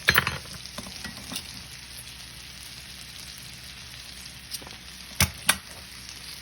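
Ribeye steak searing in a hot pan, a steady frying sizzle. A sharp knock comes right at the start and two quick clicks about five seconds in.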